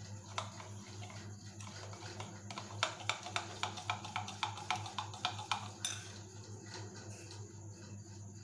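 A metal utensil clinking against a bowl in a run of quick taps, about three to four a second through the middle, over a steady low hum.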